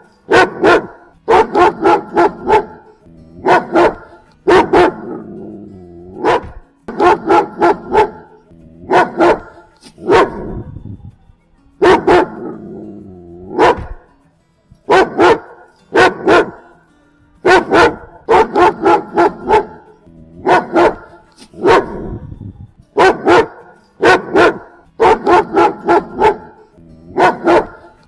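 German shepherd barking repeatedly, loud, deep barks in quick clusters of two to four with short pauses between them.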